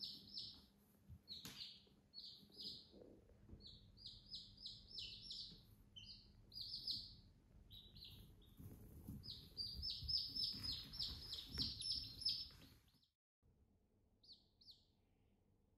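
Domestic chicks peeping: a busy run of short, high, repeated peeps, several a second. The run breaks off about thirteen seconds in, leaving only a couple of scattered peeps near the end.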